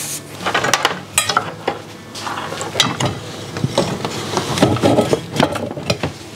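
Handheld immersion blender running in a crock of thick, slow-cooked blueberry-apple sauce, pureeing the soft fruit. Its blade churns the sauce with irregular wet splattering and clicks over a low motor hum.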